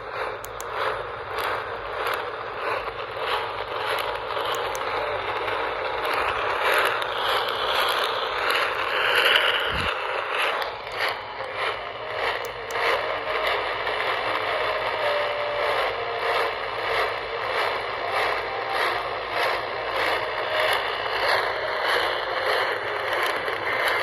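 Noisy radio reception: a steady hiss with rapid crackling, narrow-banded as if through a receiver's speaker, typical of a weak weather-radio signal.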